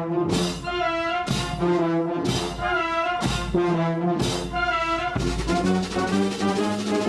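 Brass band playing held brass chords, with strong accented hits about once a second.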